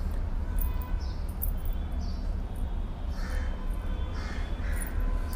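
Steady low background rumble, with a few faint, short animal calls now and then.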